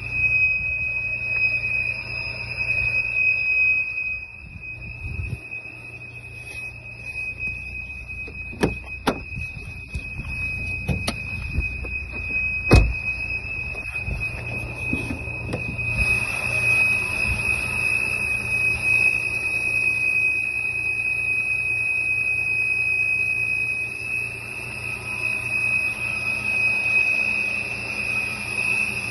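Volvo XC70's 3.2-litre B6324S straight-six engine running with a steady, high-pitched whistle over its low hum. A few sharp knocks come about halfway through.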